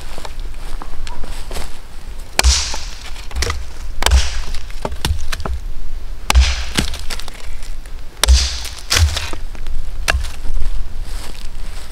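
A dead branch being chopped with an axe on a wooden chopping stump: several sharp strikes about every one to two seconds, each with a dull thud into the stump, some followed by the crack of dry wood splitting.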